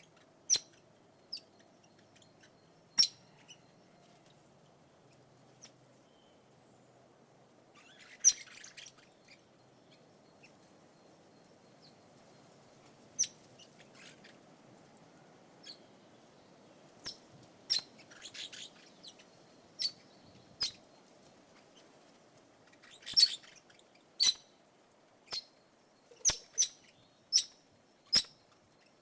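Red-rumped parakeet calling: short, sharp, high chirps, some single and some in quick little flurries, spaced irregularly.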